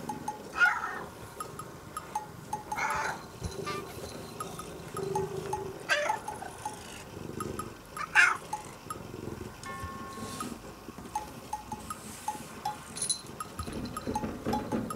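Domestic cat meowing four times, a few seconds apart, looking up at its owner to beg for food.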